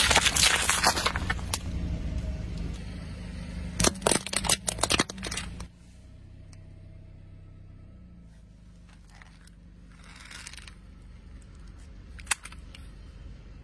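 Car tyre rolling over a row of toy balls and crushing them with a run of cracks and pops, the car's engine running low underneath; a second cluster of cracks comes about four seconds in. After about six seconds it drops to a quieter stretch with a single click near the end as a plastic action figure is handled.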